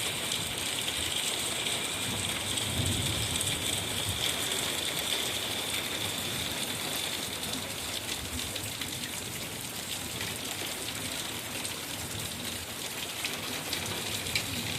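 Rain and hail falling steadily: an even hiss made of many small hits.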